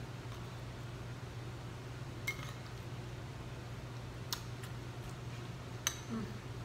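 A metal spoon clinking against a bowl three times as food is scooped, each clink sharp with a short ring, over a steady low hum.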